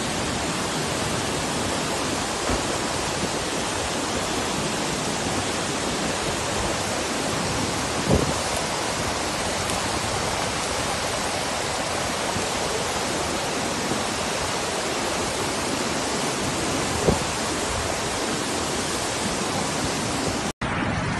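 Steady rushing of muddy flash-flood water cascading down a rocky mountainside, mixed with rain. Two brief knocks break through, about eight and seventeen seconds in, and the sound cuts off abruptly shortly before the end.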